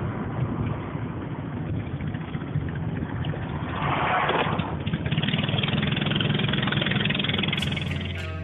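Steady engine and road noise heard inside a moving car, swelling louder about four seconds in. Music cuts in near the end.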